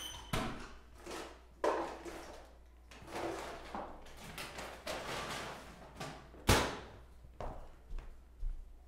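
Hurried kitchen clatter: a paper bag rustling, with knocks of things being set down and drawers or cupboards being shut. The loudest is a sharp bang about two-thirds of the way through, followed by a few lighter knocks.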